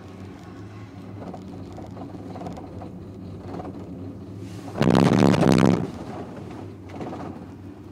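Gondola cabin riding the haul rope with a steady low hum inside the cabin, then, about five seconds in, a loud rapid clattering rumble lasting about a second as the cabin's grip rolls over the support tower's sheave train.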